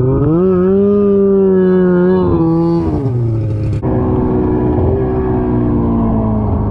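Snowmobile engine revving up at the start and holding high revs for a couple of seconds. About three seconds in it eases off, then runs at lower revs that slowly fall.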